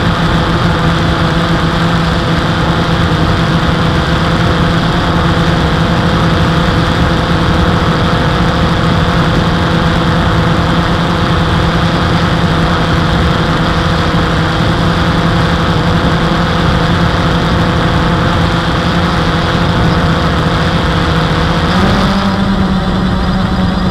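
Quadcopter motors and propellers humming steadily in a hover, heard close up from the drone's own camera, with a constant rush of airflow noise. Near the end the pitch steps up as the motors speed up.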